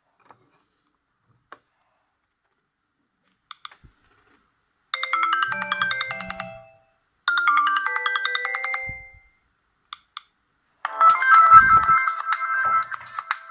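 Sony Ericsson W580i ringtones playing. After a few faint clicks, a short melodic ringtone phrase plays twice, about 5 and 7 seconds in, then a different, louder ringtone starts about 11 seconds in.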